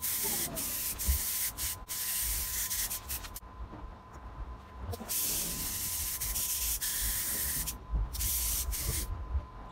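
Compressed-air paint spray gun hissing in stretches as the trigger is pulled and released while spraying paint: about three seconds of spray, a pause, nearly three seconds more, then a short final burst that cuts off about a second before the end.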